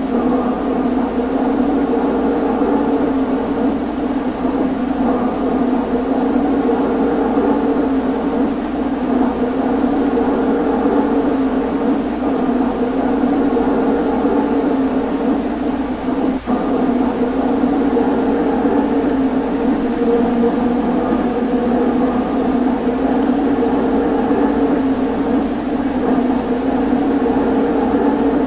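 HO scale model electric trains running on the layout, giving a steady whirring hum of small motors and wheels on the rails, with one brief click about halfway through.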